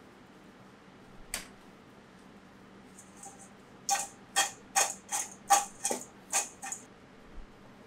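Cassava fries tossed in a stainless steel mixing bowl: a run of about eight sharp clatters, about three a second, each with a faint metallic ring, in the second half. A single click about a second and a half in.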